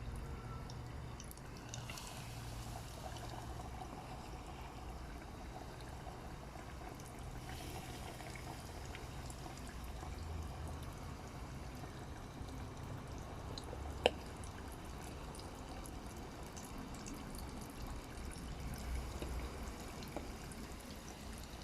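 Flour-and-starch-coated chicken wings deep-frying in hot oil, a steady sizzle, with one sharp click about 14 seconds in.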